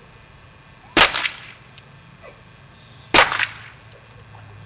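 Two shots from a paintball marker chronographed at about 425 fps, roughly two seconds apart. Each is a sharp crack with a quick second smack right after it as the paintball bursts against the mask's lens.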